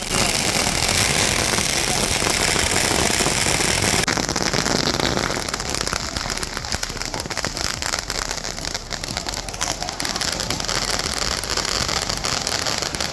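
Diwali firecrackers going off: a steady hiss for about the first four seconds, then dense rapid crackling and popping through the rest.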